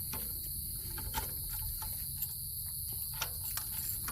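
Crickets chirping in a steady high trill, with a few light clicks and taps over it.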